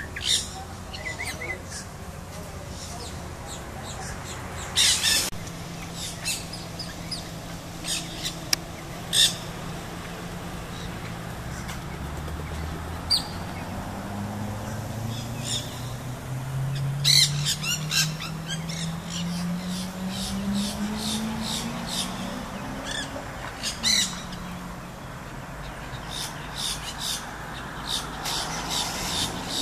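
Nanday parakeets chattering: short, harsh screeching calls at scattered intervals, with quick runs of repeated calls about halfway through and again near the end.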